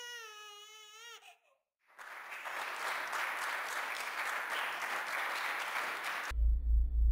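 Audience applause: dense clapping that starts about two seconds in and cuts off suddenly near the end, where a deep, pulsing bass beat comes in. Before it, a high, wavering voice holds a note for about a second.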